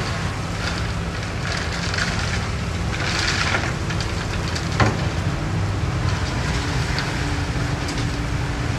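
Diesel engine of heavy earthmoving equipment running steadily, with crackling and crunching over it and one sharp knock about five seconds in.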